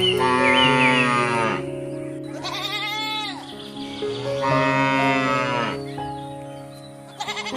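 Three long, wavering animal bleats, sheep-like, over steady background music.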